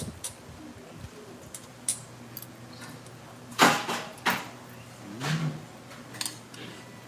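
Slurping of cold buckwheat noodles and broth (mul-naengmyeon): two loud, short slurps about three and a half seconds in and a softer one a second later, with a few light clicks in between.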